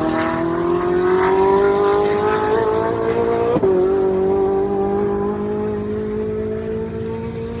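Ferrari 458 Italia's V8 engine at high revs, accelerating hard with its pitch climbing steadily. About three and a half seconds in there is a quick upshift, a sudden drop in pitch, before it climbs again.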